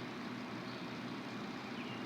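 Steady rain falling in the wind, an even hiss with a few faint high chirps.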